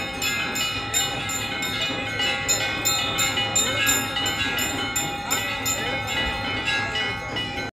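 Temple bells of a Ganga aarti ringing rapidly, struck about four times a second, their tones overlapping into a continuous clangour. The ringing cuts off abruptly right at the end.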